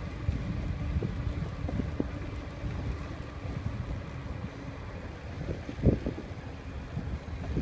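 Wind buffeting the handlebar-mounted microphone over the low rumble of bicycle tyres rolling on brick pavers, with a couple of sharp knocks near the end.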